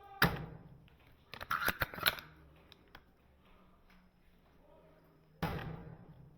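A bolt-action airsoft sniper rifle (Cyma 708) being fired and worked: sharp mechanical clacks. One loud clack comes just after the start, a quick cluster of metallic clicks follows around one and a half to two seconds in, and another loud clack comes about five and a half seconds in.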